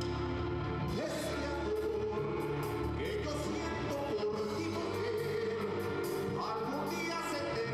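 Live band music with a vocalist singing, the voice coming in about a second in over keyboard and instrument backing.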